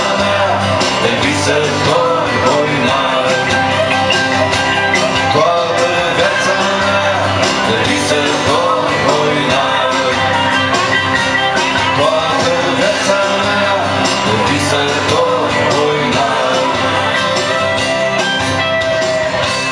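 Country song played live: acoustic guitar and singing over bass and a steady beat.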